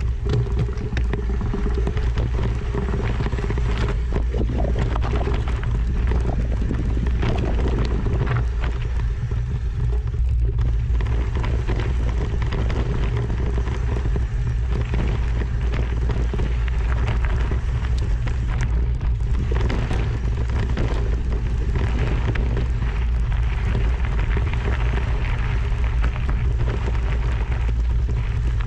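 A vehicle running steadily: a constant low engine drone with a crackly rush of road or wind noise over it.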